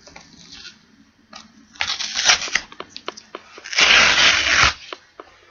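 A cardboard shipping box being opened by hand: crinkling and clicking of packaging about two seconds in, then a loud rip of packaging lasting about a second near four seconds in.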